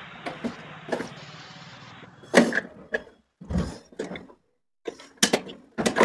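A series of separate knocks and clicks of plastic and metal parts as the drain valve and drain motor assembly of a top-load washing machine are worked loose and pulled out by hand, after a fading rustle at the start.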